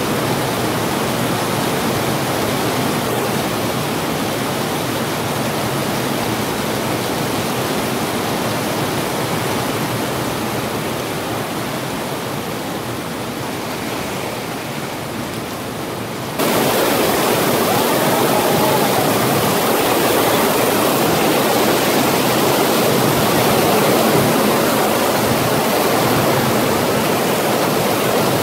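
Heavy tropical rain pouring down steadily, a dense even hiss. About 16 seconds in it cuts abruptly to a louder, fuller downpour.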